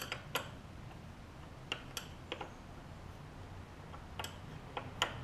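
Scattered light clicks and taps of a wrench and metal parts being handled at a small engine's carburetor, about seven in all, over a faint low hum.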